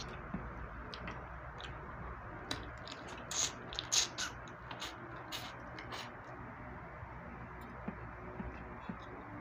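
Close-up eating sounds over a steady background hiss: small clicks and crackles of crab shell being picked apart by hand. About three and a half and four seconds in come two louder mouth sounds as crab meat is sucked from the shell.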